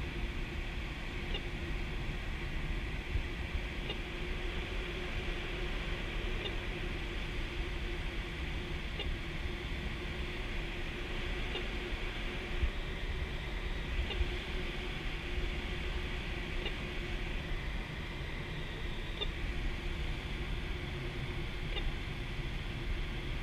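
Steady rush of air around a K13 glider's canopy in gliding flight, with no engine. A faint short high beep comes about every two and a half seconds.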